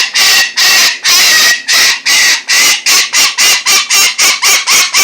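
A pet bird squawking loudly and harshly, about a dozen calls in a row that come faster towards the end, in a noisy, sassy outburst.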